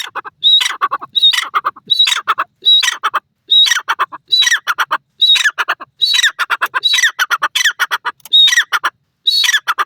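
Grey francolin giving its loud repeated call. About a dozen fast phrases come a little over one a second, each a high clear note followed by a quick run of harsh, falling notes. The calling stops abruptly at the end.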